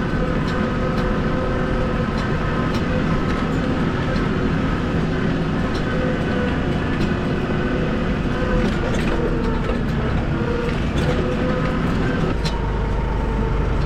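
A motor vehicle's engine running steadily while driving, with scattered light clicks and knocks over the hum; the low rumble grows heavier about twelve seconds in.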